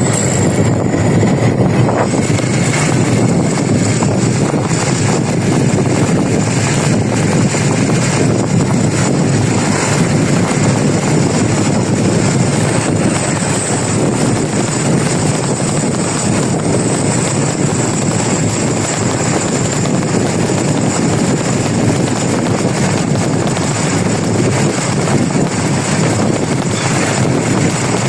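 Steady engine, tyre and wind noise of a moving bus, loud and unbroken, with no horn sounding.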